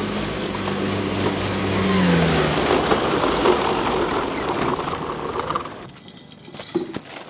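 Snobear tracked ice-fishing vehicle's engine running steadily as it drives across the icy lot, its pitch dropping about two seconds in, with a rising rush of noise that dies away near the end. A few clicks follow as it goes quiet.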